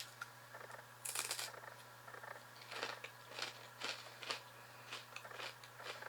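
Crunchy cheddar pretzel bites being bitten and chewed: a crackly burst about a second in, then short, sharp crunches about twice a second. A low steady hum runs underneath.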